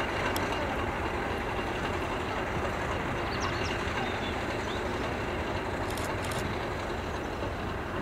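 English Electric Class 50 diesel locomotive approaching with a train of coaches, its V16 engine running with a steady drone.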